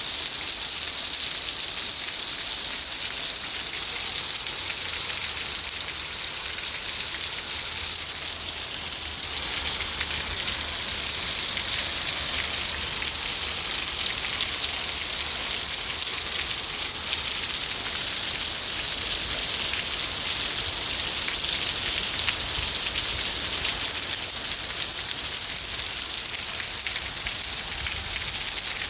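Steady rain falling, a dense hiss of drops; the level dips briefly about eight seconds in, then the rain carries on.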